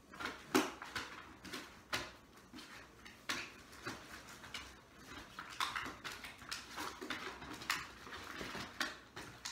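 Household goods being packed into a cardboard shipping box: irregular knocks and clicks as items are set against the cardboard and each other, with bursts of package rustling.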